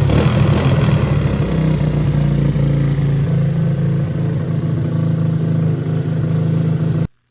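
Kawasaki KLT110's small single-cylinder engine running steadily on its repaired crankshaft, showing the crank fix has worked. It cuts off suddenly near the end.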